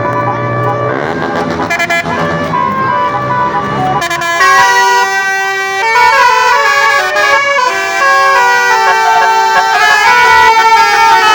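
A low drone, then from about four seconds in a bus's 12-note basuri telolet horn playing a melody of short, stepped, loud tones.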